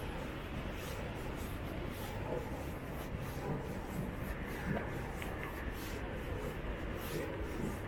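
Footsteps of a person walking on a park path, faint repeated scuffs, over a steady low background noise.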